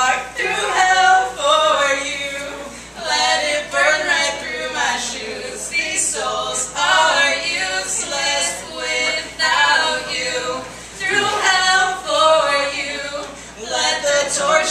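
A man and a woman singing a duet, unaccompanied.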